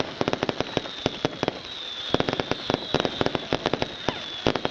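Display fireworks going off in a rapid, irregular string of sharp cracks and bangs, several a second, with a thin high whistle slowly falling in pitch through the second half.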